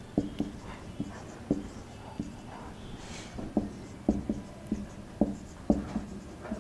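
Marker pen writing on a whiteboard: a run of short, irregular taps and strokes as numbers are written.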